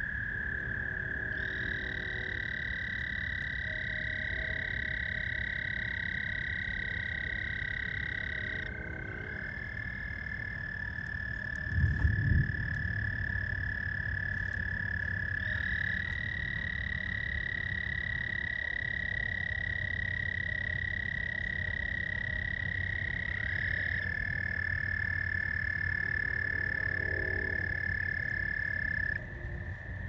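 Chorus of frogs trilling: several long, steady, high trills, each held for several seconds and overlapping at slightly different pitches, over a low background rumble. A short low thump comes about twelve seconds in.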